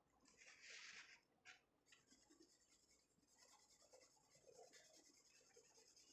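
Faint strokes of a soft blending brush rubbing over sketchbook paper to smooth graphite shading: one stronger swish about half a second in, then lighter, steadier brushing from about three seconds in.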